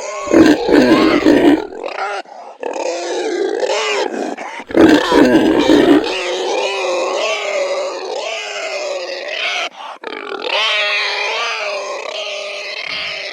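Pig squealing and grunting, a continuous wavering high cry with two louder, harsher bursts, one about half a second in and one around five seconds.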